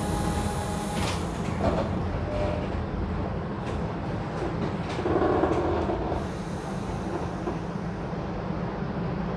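TTC Flexity Outlook streetcar making a steady low rumble and hum, with a brief louder rush about five seconds in.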